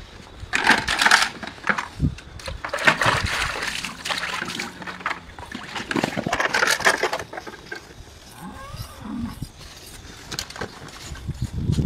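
Rough scraping and tearing noises in several bursts of a second or two, from a skinning knife and hands working the hide off a cow carcass.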